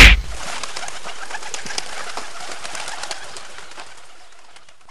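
A sudden loud burst at the start, then a flock of pigeons cooing amid a dense clatter of small clicks, fading out slowly toward the end.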